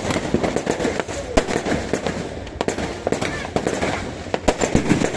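Fireworks going off: many bangs and pops in quick, irregular succession.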